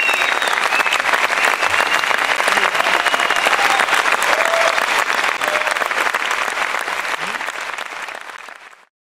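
Audience applauding, dense and steady, fading out near the end.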